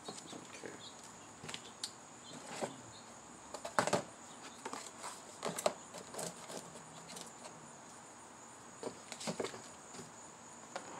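Cardboard packaging being handled: box lid and inserts lifted off and set down, with scattered knocks, taps and rustles, the loudest a cluster of knocks about four seconds in. A faint steady high-pitched whine sits underneath.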